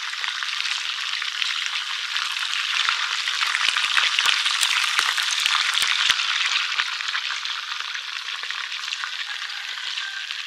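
A whole fish deep-frying in hot oil in a metal wok, the oil sizzling steadily with sharp crackling pops that come thickest around the middle.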